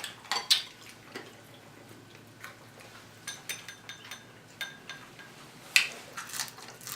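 Close-miked eating sounds: crunching and smacking while chewing fried chicken wing. They come as scattered short crackles and clicks, with louder ones about half a second in and again near the end.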